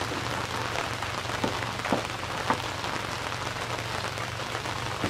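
Steady rain falling on the river and the boat, with a few sharper taps about one and a half to two and a half seconds in.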